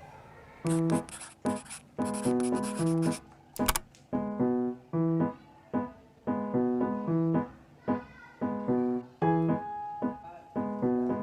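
Background piano music: light keyboard chords played in a steady, bouncy rhythm, with a brief click a little before the halfway point.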